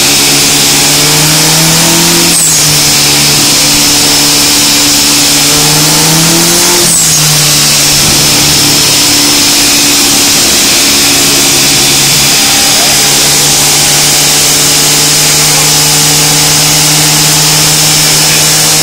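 Turbocharged 1.8 Rover K16 engine in an FSO Polonez running hard on a chassis dynamometer, loud. The revs climb twice, each climb breaking off sharply about two and a half and seven seconds in, then the engine settles into a steady high drone.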